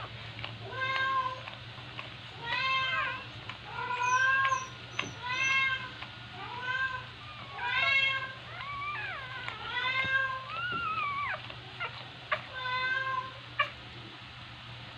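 Newborn puppies squealing and mewing, short high arched cries about once a second, with a few longer wavering cries near the middle. A single sharp click near the end.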